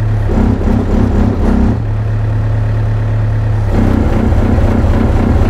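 Yanmar mini excavator's diesel engine running under hydraulic load, a travel lever held against a track that can't move during a pressure leak-down test. A throbbing pulse of about three beats a second comes and goes twice over the steady engine hum.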